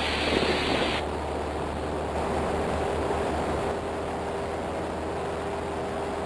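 Steady drone of a Cessna 172's engine and propeller heard inside the cabin in cruise, a constant noise with a steady hum in it; the highest hiss drops away about a second in.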